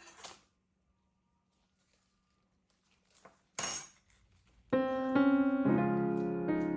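Two brief noisy sounds, the second louder, then soft piano music that comes in about two-thirds of the way through as a sequence of held chords.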